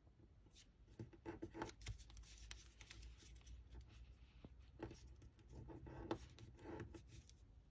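Faint rustling and scratching of a small sheet of origami paper being folded and creased by fingers, in scattered short strokes.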